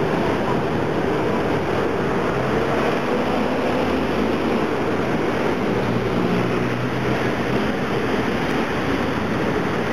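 Busy street traffic: a steady din of car engines and tyres, with a bus engine's low drone heard most strongly in the middle as it passes close by.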